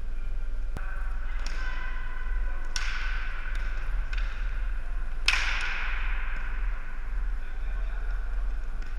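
Floor hockey sticks knocking against the ball and the gym floor during play: about six sharp clacks, the loudest about five seconds in, each ringing out in the gym's echo, over a steady low hum.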